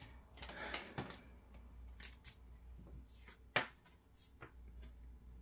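Tarot cards being shuffled by hand: a run of soft card rustles and taps, with one sharper snap of the cards about three and a half seconds in.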